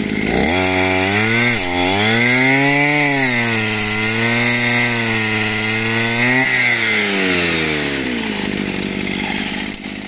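Kraftech petrol brush cutter engine running hard, driving a 40-tooth circular saw blade. Its pitch dips and recovers a few times as the blade is loaded. The engine note falls away near the end and cuts off suddenly.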